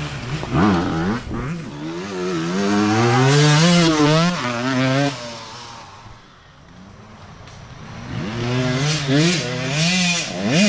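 Youth dirt bike engines. One bike revs away with its pitch repeatedly climbing and dropping, then fades into the distance. A second bike approaches and gets louder over the last few seconds, revving up near the end.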